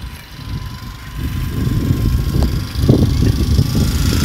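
Wind buffeting the microphone of a phone held out while riding a bicycle: an uneven low rumble that grows loud about a second and a half in.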